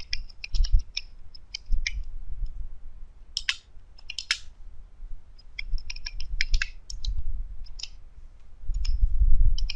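Typing on a computer keyboard: irregular runs of key clicks, in short bursts with pauses between, over a low rumble that swells near the end.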